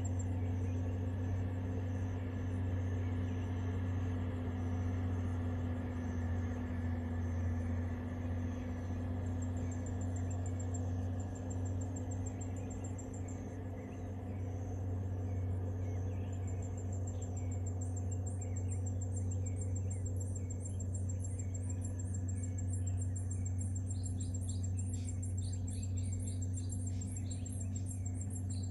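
Forest ambience: a steady, high-pitched insect trill, joined a little past halfway by rapid high chirping, over a steady low hum.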